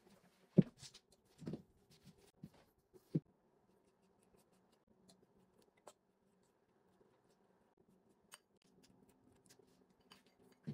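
Baking tray and kitchen utensils being handled on a worktop: a few short knocks and clatters, the loudest about half a second in, then only faint scattered ticks while egg wash is brushed on.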